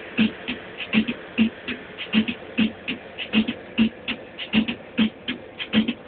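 Music with a steady drum beat: low kick thumps alternating with sharper snare-like hits, about two beats a second.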